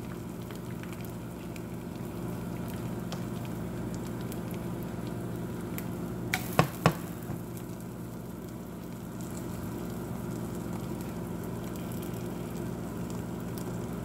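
Egg frying in butter in a nonstick skillet, a soft steady sizzle, over the steady hum of a running microwave oven. Two sharp clicks about halfway through as the egg is turned in the pan.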